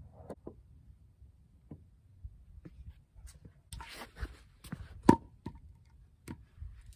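Wooden posts and boards handled on a concrete slab: scattered light knocks and scrapes, with one sharp, loud wooden knock about five seconds in as a 6x6 post is set down.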